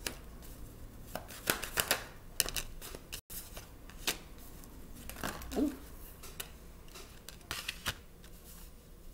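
Tarot cards being dealt and slid onto a wooden tabletop: a series of sharp card slaps and clicks, several in quick pairs.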